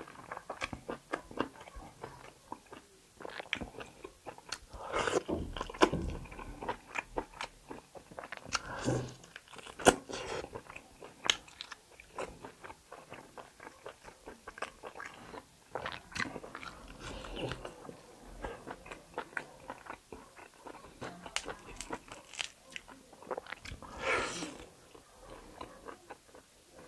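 Close-up chewing and biting of tough, bony kalij pheasant meat: irregular wet clicks and crunches, with a few louder mouthfuls along the way.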